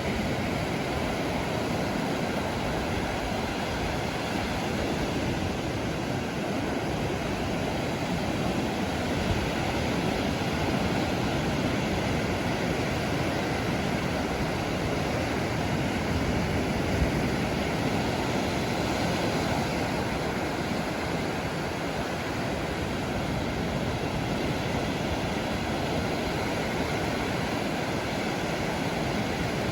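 Sea waves and surf breaking on the shore, a steady wash of noise with no pause.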